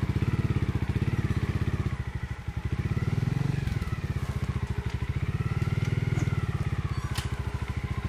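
Trials motorcycle engine running at a low, pulsing idle as the bike is walked over rough ground. About two seconds in it dips as if about to stall, then picks up again. A wavering whine rises and falls over the engine beat, and the title calls it an abnormal noise from the engine.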